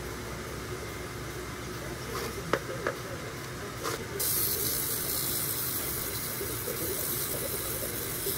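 Wet lapidary flat lap running, its spinning disc fed with water from a coolant nozzle, with two sharp clicks near the middle. About four seconds in, a loud steady hiss sets in and holds.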